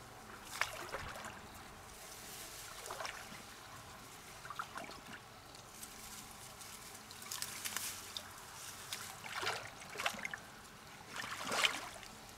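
Water sloshing and splashing in short irregular bursts over a steady trickling hiss, as from hands or mussels being moved through shallow water; the loudest splash comes near the end.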